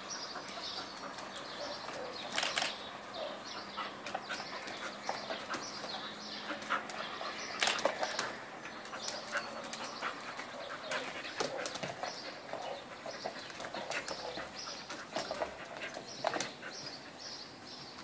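Dogs' claws clicking and scrabbling on ceramic floor tiles as puppies and an adult dog scamper and play, with scattered sharper clicks and knocks.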